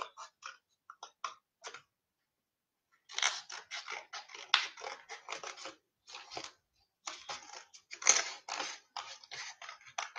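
Scissors cutting paper in quick runs of snips, broken by a short silence about two seconds in and a brief pause around six seconds.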